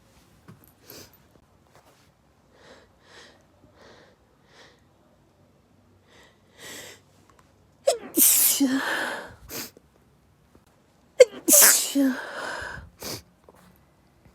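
A person sneezing from pepper. A run of faint short breaths builds up, then two loud sneezes come about three seconds apart, each followed by a shorter burst.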